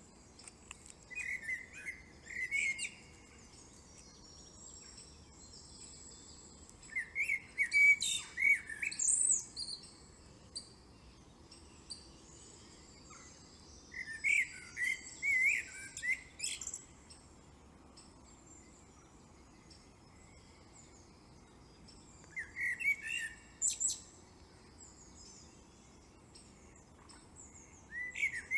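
Birdsong: a bird sings five short chirping phrases spaced several seconds apart, over a faint steady hiss.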